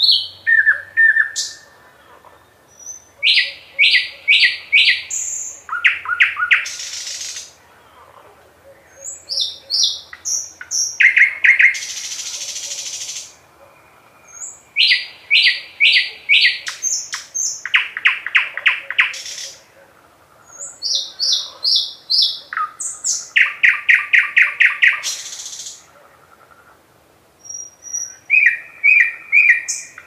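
Thrush nightingale singing: about six loud song phrases of a few seconds each, separated by short pauses. Each phrase is built of rapidly repeated notes and dry clicks, and several end in a harsh rattle.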